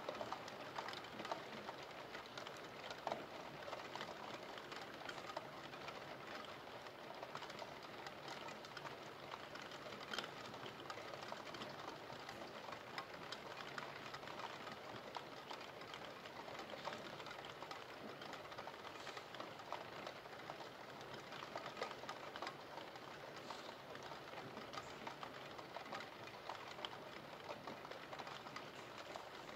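Steady rain falling, with many scattered drops ticking sharply through a soft even hiss.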